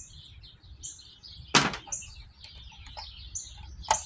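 A bird chirping over and over in short high notes, with a loud sharp click about one and a half seconds in and another near the end.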